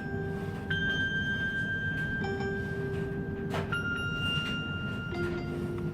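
Chime ringtone: bell-like notes alternating high and low, struck about every second and a half, each ringing on and overlapping the next, over steady low background noise.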